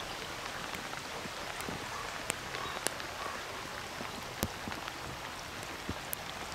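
Rain falling on water: a steady hiss with scattered sharp ticks of single drops.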